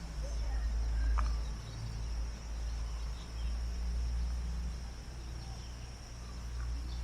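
Steady high-pitched insect drone, with a fluctuating low rumble on the microphone underneath.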